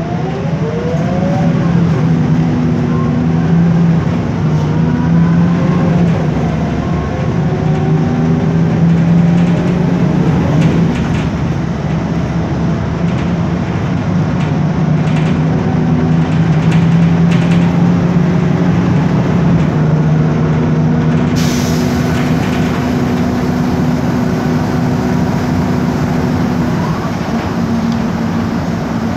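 Inside a MAN Lion's Classic city bus underway: its MAN E2876 CNG engine and ZF Ecomat 6HP504C six-speed automatic transmission running steadily. A whine rises in pitch during the first couple of seconds as the bus picks up speed.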